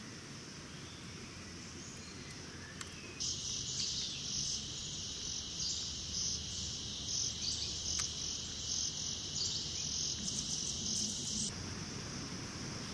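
Rainforest insects calling: a steady, faint high-pitched drone, joined about three seconds in by a much louder pulsing, shrill insect chorus that cuts off suddenly near the end.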